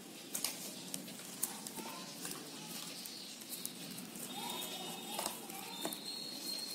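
Plastic basket-weaving wire being handled and pulled through knots: soft rubbing with scattered sharp clicks and ticks. Faint wavering calls can be heard in the background around the middle.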